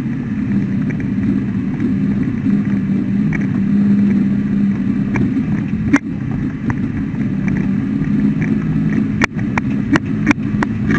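Engine of yellow hydraulic heavy equipment running steadily close by, a low drone. Sharp clicks and knocks come through now and then, several in quick succession near the end.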